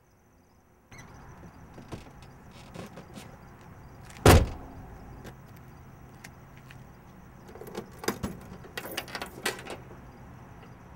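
A car door slams shut once, sharply, about four seconds in. Near the end comes a run of small clicks and rattles from keys and a car latch, over a faint steady background.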